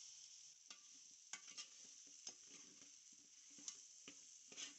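Faint steady sizzle of chicken pieces frying in masala in a metal pot, with a metal spoon stirring and scraping against the pot in scattered clicks.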